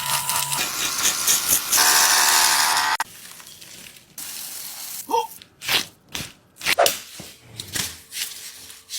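Loud hissing spray for about three seconds, then a string of short, separate swishing and squelching noises.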